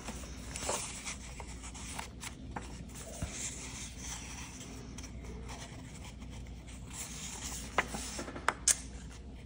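Paper and card pieces being handled and slid against each other: soft rustling and rubbing, with a few brief light taps and clicks.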